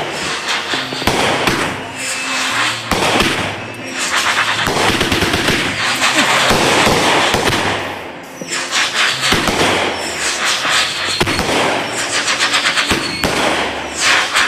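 Consumer fireworks going off in rapid succession: a dense run of sharp bangs and crackling, easing briefly about eight seconds in and then picking up again.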